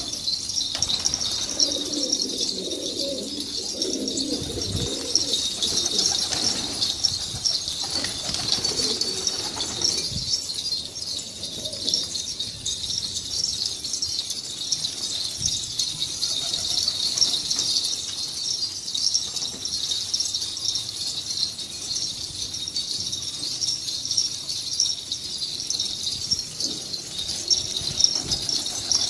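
Domestic pigeons cooing, mostly in the first few seconds and again about eight seconds in, over a dense, steady high-pitched chirping that runs throughout.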